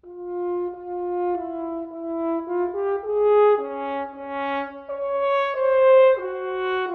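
Solo French horn playing a slow, unaccompanied melodic phrase of held notes, each lasting about half a second to a second, entering right after a silence.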